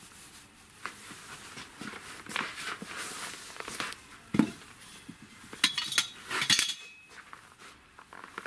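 Homemade square-tube steel block grip clinking and knocking as it is handled on a concrete block: scattered light clicks, a dull knock about four seconds in, then a few sharp metallic clinks close together, one of them ringing briefly.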